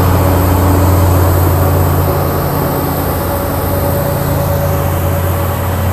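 Caltrain MP36PH-3C diesel locomotive's 16-cylinder EMD 645 engine working under power as it pushes the train out of the station, a deep steady drone with a steady higher whine above it, passing close by and slowly fading as it moves off.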